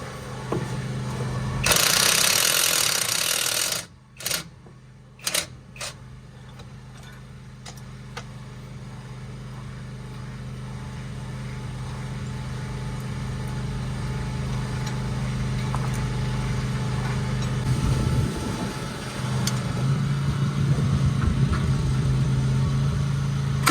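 Impact wrench running for about two seconds to undo bolts on the handbrake cable brackets, then three short bursts, over a steady low machine hum that grows louder towards the end.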